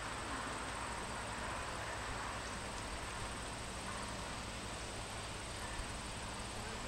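Steady outdoor background noise with a continuous high insect trill.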